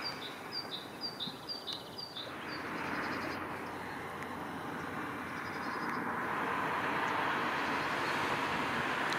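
A small songbird repeats a short, high, falling two-note phrase about seven times over the first two seconds. After that, a steady rush of road traffic noise slowly grows louder.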